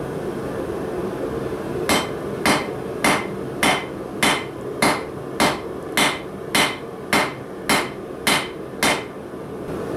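Blacksmith's hammer striking hot 3/8 in 1018 steel bar on an anvil: a steady run of about thirteen ringing blows, a little under two a second, starting about two seconds in and stopping about a second before the end. A steady hum runs underneath.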